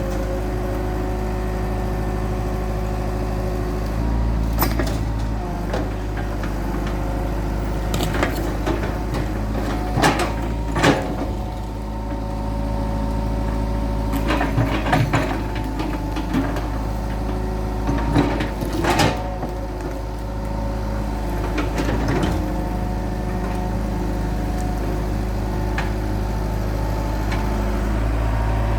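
Hitachi EX100-2 excavator's diesel engine running steadily, with about eight sharp metallic clanks and knocks scattered through, the loudest around the middle.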